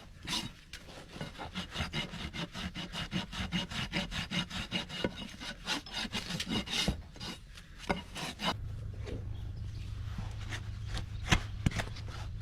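A farrier's hoof rasp filing a Shire horse's hoof wall in quick, even scraping strokes, about three a second. About eight seconds in the strokes stop, leaving a steady low hum and a few sharp clicks.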